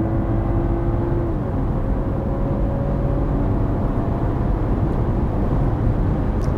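BMW M340i Touring's turbocharged inline-six running under way, heard inside the cabin with road noise as a steady drone; its pitch dips slightly about a second and a half in.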